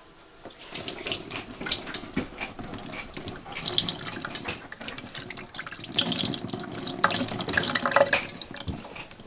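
Water poured from a stainless steel kettle splashing over a brook trout held in the hand and into a stainless steel sink, rinsing the cleaned fish. The splashing is louder for a couple of seconds about six seconds in.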